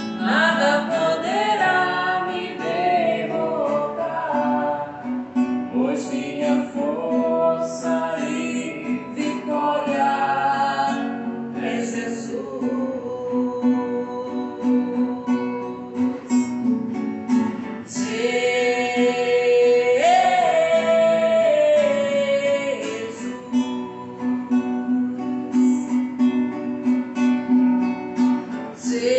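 Music from a Portuguese worship song: a woman singing over acoustic guitar.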